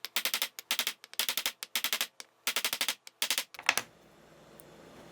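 Short metal pipe being cut by hand, rapid sawing strokes in quick runs that stop about three-quarters of the way through, leaving a faint steady hum.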